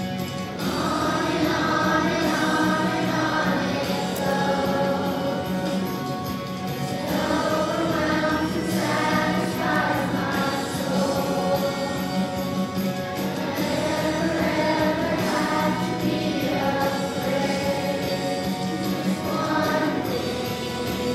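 A children's choir singing a worship song in unison, holding long sung notes.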